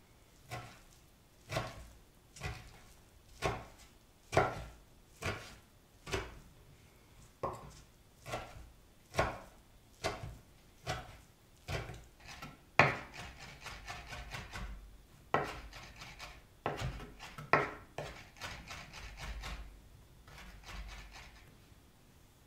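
Chef's knife chopping a pile of leafy wild herbs on a bamboo cutting board: single knocks of the blade on the wood about once a second, then from about halfway quicker, denser chopping that stops shortly before the end.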